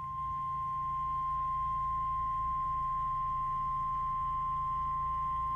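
Emergency alert attention tone, a single steady tone of about 1050 Hz as used by NOAA Weather Radio. It announces a severe thunderstorm warning that is about to be read.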